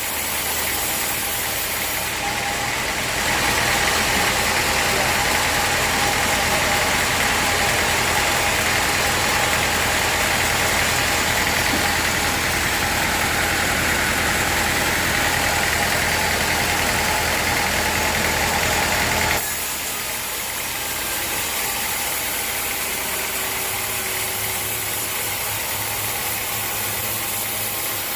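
Sawmill running steadily throughout. From about three seconds in, a louder, hissing cutting sound sits on top of it and stops sharply about two-thirds of the way through, leaving the machine running on its own.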